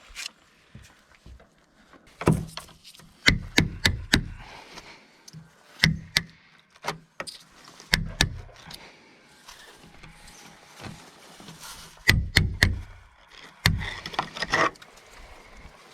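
Irregular knocks and clicks in several short clusters, from plastic trim and the window frame being handled with bare hands.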